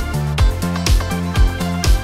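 Background electronic dance music with a steady beat, about two beats a second, over a repeating bass line.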